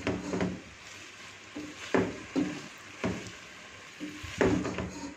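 Silicone spatula stirring and tossing noodles in a nonstick pan, a string of short scrapes and knocks every half second to a second, over a faint frying sizzle.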